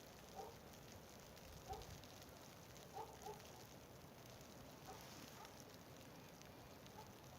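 Near silence: faint outdoor hiss with a handful of very faint, short pitched blips scattered through it.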